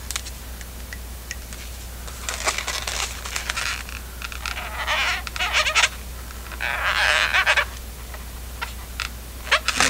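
Latex modelling balloons squeaking and rubbing in the hands as eyes are drawn on them with a marker pen. There are three short spells of squeaky scratching with a few light clicks between them.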